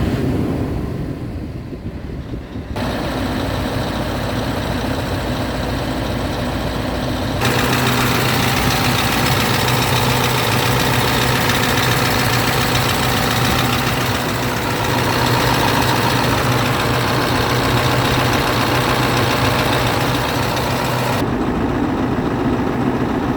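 Scania R tractor unit's diesel engine idling steadily, with its higher clatter and hiss much louder from about 7 to 21 seconds in.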